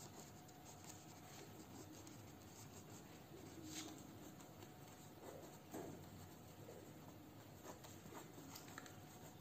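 Faint pen strokes of writing, a few light scratches scattered over near-silent room tone.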